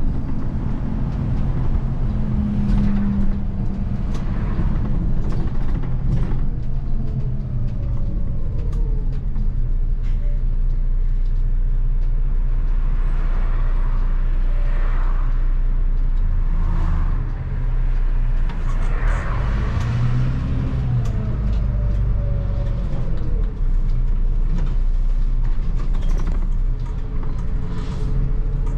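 The 6.9-litre turbo-diesel engine of a 2004 MAN 12.223 SLF city bus running under way, heard from the driver's cab, its note rising and falling a few times as the bus speeds up and slows. Road noise and occasional short knocks and rattles are mixed in.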